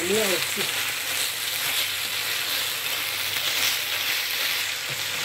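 Minced meat sizzling steadily in a frying pan as a slotted spatula stirs and turns it.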